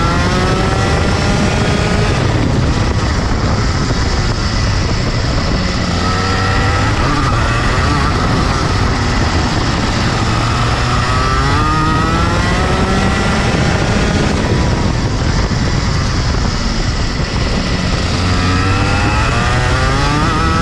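Rotax Max 125cc single-cylinder two-stroke kart engine at full race pace, heard onboard. Its revs climb in rising sweeps four times as the kart accelerates out of corners, dropping back in between as the driver lifts and brakes for the next turn.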